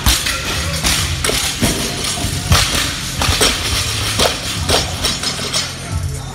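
Barbell loaded with bumper plates dropped from overhead onto rubber gym flooring after a snatch, landing in a series of thuds and knocks as the plates bounce and settle.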